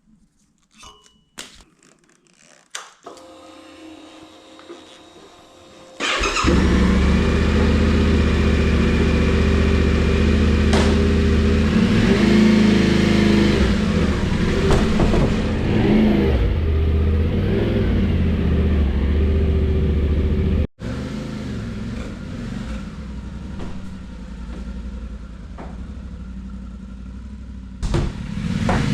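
Yamaha Ténéré 700's parallel-twin engine starting about six seconds in after a few faint clicks, then running steadily. It drops out for a moment about twenty seconds in and carries on quieter.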